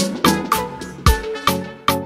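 Upbeat background music with sharp, evenly spaced notes over a steady beat.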